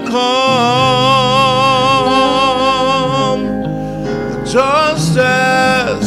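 Gospel song: a singer holds one long note with vibrato over sustained instrumental backing, then starts a new phrase about four and a half seconds in.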